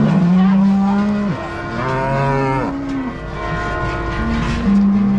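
Cows mooing: three long, deep calls one after another, two of them overlapping with a second animal.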